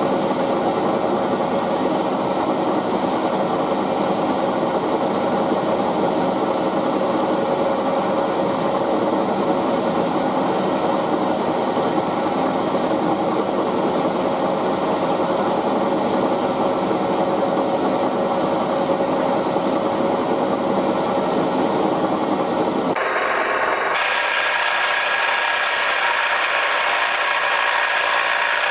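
Milling machine running with its end mill cutting an aluminium test part: a steady mechanical hum with a held mid-pitched tone. About 23 seconds in the sound changes abruptly, the deeper part falling away and a higher tone coming in.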